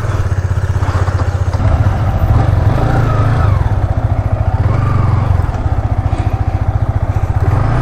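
Single-cylinder motorcycle engine running steadily while riding, a fast even chug of exhaust pulses with no clear rise or fall in revs.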